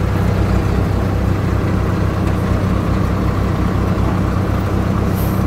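Heavy diesel dump truck engine running steadily at low revs with an even low throb. A brief hiss near the end.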